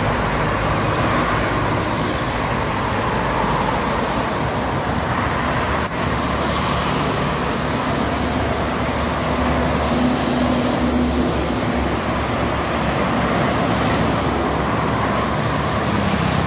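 Steady noise of dense highway traffic, with car and lorry tyres and truck engines humming below. A single short click about six seconds in.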